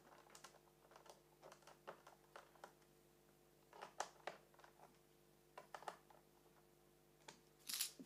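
Faint clicks and scrapes of a magnetic-tipped screwdriver turning screws into a laptop's plastic bottom cover, in small groups every second or two, with a louder clatter of clicks near the end.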